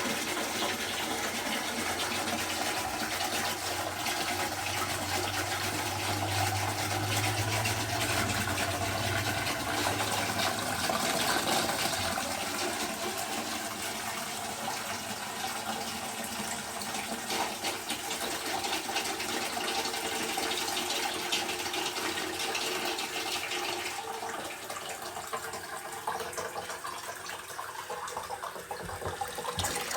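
Wooden high-level cistern refilling after a flush: a steady rush and hiss of water running in, the hiss thinning near the end as the cistern fills.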